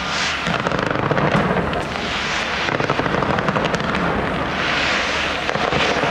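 Big fireworks display going off: dense crackling with many quick pops and a hissing burst every two or three seconds.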